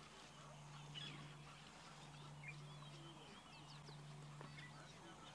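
Near silence: faint scattered bird calls, short chirps and whistles, over a low steady hum.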